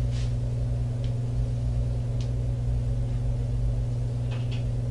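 Steady low hum with room tone, as on a surveillance recording, with a few faint, brief rustles of movement: papers handled at a table.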